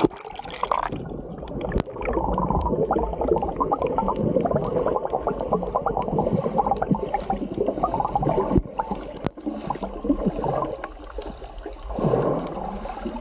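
Underwater gurgling and bubbling picked up by a camera microphone submerged in seawater: muffled, with a constant crackle of tiny clicks and pops. It dips briefly near the start and swells again near the end.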